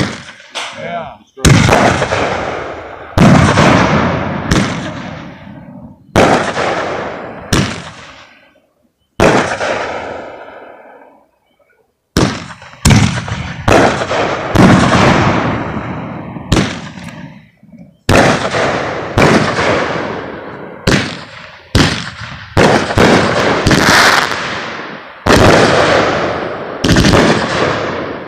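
Aerial fireworks going off in a rapid run of bursts, about one a second, each a sharp bang that dies away, with a pause of about two seconds near the middle.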